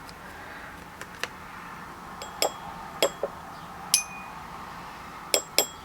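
Watercolor painting gear clinking: a brush tapping on hard ware, about eight light clicks and taps spread through the stretch. One tap near the middle rings briefly with a glassy tone.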